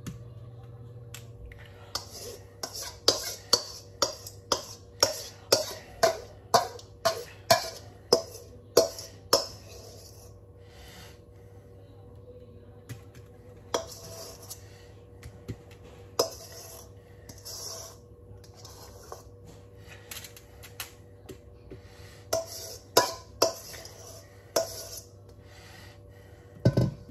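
Metal spoon scraping and tapping against a stainless steel mixing bowl as marinade is scraped out: sharp taps about two a second for several seconds, then softer scraping, with a few more taps near the end.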